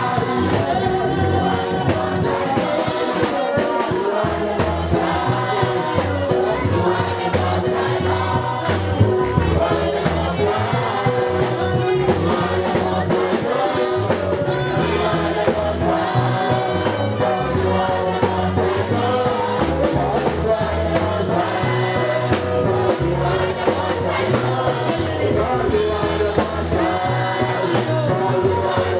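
Gospel worship song sung by a choir with instrumental backing.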